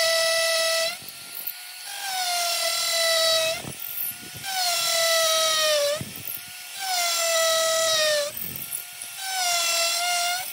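Cordless drill drilling into brick with a masonry bit, run in about five short bursts. Each burst is a motor whine that sags in pitch as the bit bites into the wall.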